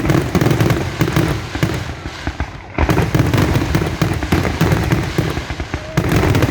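Fireworks display: a dense, rapid barrage of bangs and crackles, loud throughout.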